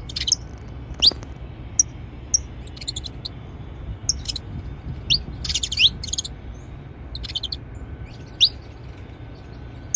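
Saffron finches calling: short high chirps and quick upward-sweeping notes, spaced irregularly with a few rapid clusters, over a steady low background rumble.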